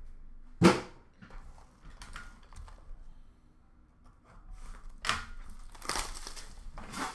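A single knock just under a second in, like a box set down hard, then handling clicks and, from about five seconds in, the crinkling and tearing of plastic shrink-wrap being stripped off a sealed trading card box.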